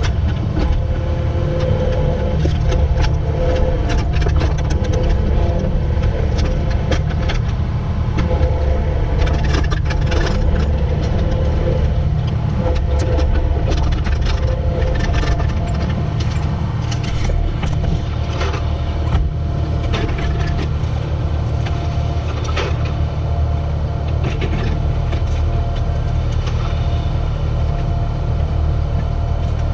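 Kubota SVL75-2 compact track loader's diesel engine running steadily, with scattered clanks and rattles from the working machine.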